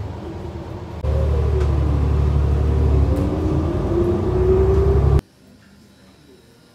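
City bus running, heard from inside: a heavy low rumble with a drivetrain whine that rises and falls in pitch, louder from about a second in. It cuts off suddenly about five seconds in, giving way to the quiet hum of a classroom.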